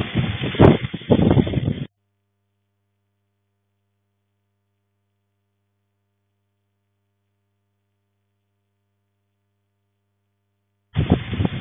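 Strong wind gusting on the microphone in a heavy rainstorm, cutting off abruptly about two seconds in. About nine seconds of total silence with only a faint low hum follow, then the wind and rain noise returns suddenly near the end.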